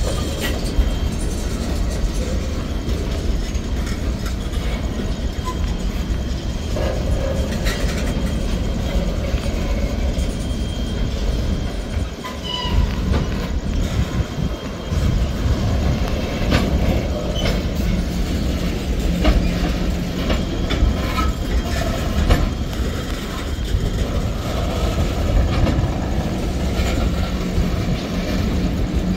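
Tank cars of a freight train rolling past close by: a steady rumble of steel wheels on rail, with clicks as the wheels cross rail joints and a few faint, brief wheel squeals.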